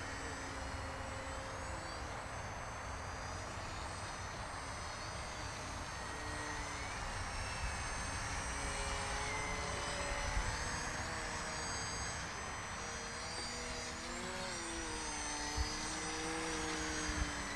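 Small electric aerobatic RC airplane, an E-flite Edge 540 QQ, in flight: the whine of its electric motor and propeller rises and falls in pitch as it manoeuvres, over a low steady rumble.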